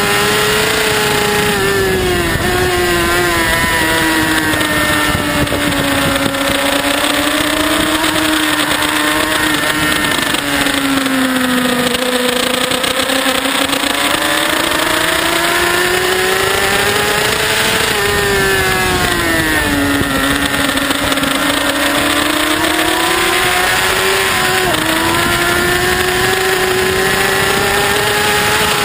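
Race motorcycle engine held at high revs under load, heard from a camera behind the windscreen, with wind rushing past. The engine pitch sags slowly and climbs back twice, about 12 and 20 seconds in, with no gear-change breaks.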